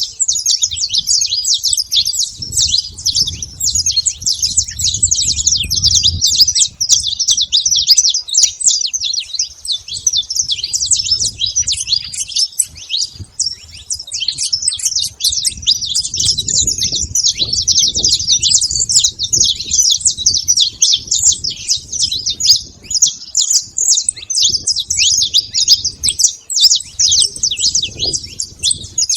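A flock of saffron finches chirping and calling together, many short overlapping notes in a continuous chatter, with a low rumble underneath at times.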